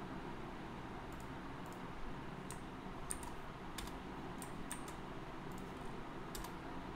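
Computer keyboard keys and mouse buttons clicking one at a time, about a dozen separate clicks spread unevenly, over a steady low background hum.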